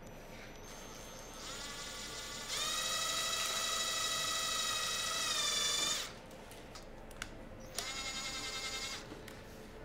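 Cordless drill-driver's motor whining as its bit works into wood: a softer start, then a steady high whine for about three and a half seconds that stops suddenly about six seconds in. After a click, a second, shorter run of about a second near the end.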